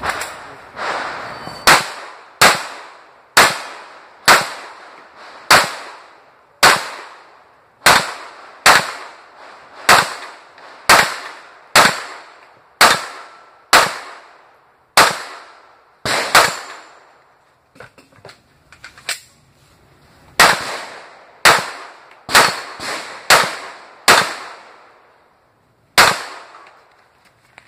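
Competition gunfire: a firearm fired in a fast string of about two dozen shots, mostly about one a second, each followed by a ringing echo. About two-thirds of the way through there is a pause of a few seconds with a couple of faint knocks, then the shots resume in a quicker run and end with a final shot near the end.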